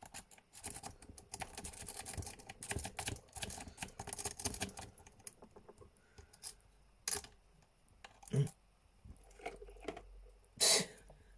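Rake pick scrubbing the pins inside a CPOX padlock's keyway: a rapid run of small metallic clicks for the first five seconds or so, then scattered single clicks with a few louder ones near the end.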